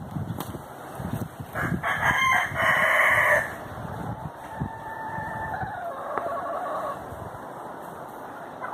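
A rooster crowing, loudest from about two to three and a half seconds in, followed by a fainter, drawn-out crow.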